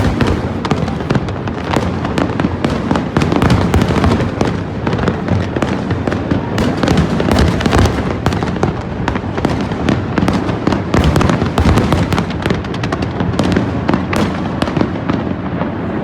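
Large fireworks display going off without a break: a dense run of bangs and crackles over a continuous rumble of booms, easing slightly near the end.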